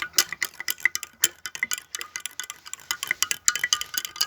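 Spoon stirring a medicinal powder into water in a container, clinking against the sides in rapid, irregular strokes, several a second.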